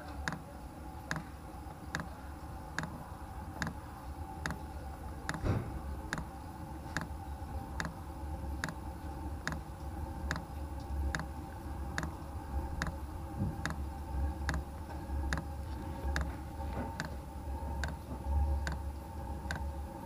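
Chinese diesel heater's fuel dosing pump ticking evenly, a little more than once a second, over the steady hum of the running heater. A pulse damper fitted in the pump's fuel line makes no difference to the ticking.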